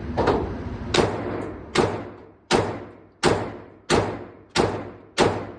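Glock pistol fired in a steady string of eight shots, about one every three-quarters of a second, each crack trailing off in an echo.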